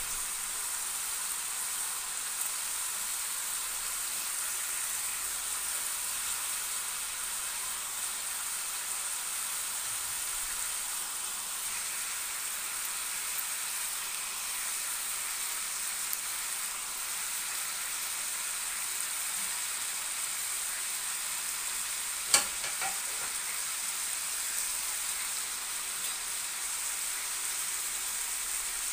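Chicken pieces with onion, green pepper and tomato sizzling steadily in a pan, with a constant fine crackling hiss and one sharp pop about three-quarters of the way through.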